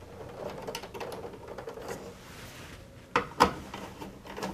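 Small clicks and scrapes of a screwdriver and wire working at a breaker panel's neutral bus bar as a lead is landed and screwed down, with two sharper clicks a little after three seconds in.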